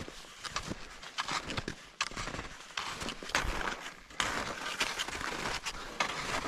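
Footsteps in snow, one step after another in an irregular walking rhythm.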